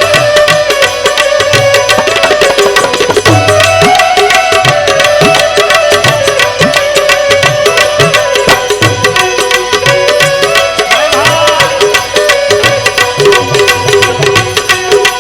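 Gujarati devotional bhajan music: a wavering, gliding melody over a steady drum beat.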